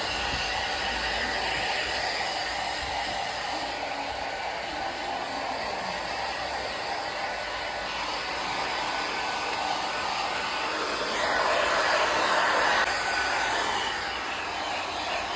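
Handheld hair dryer blowing steadily on a pug's wet coat. It grows louder for a couple of seconds about eleven seconds in.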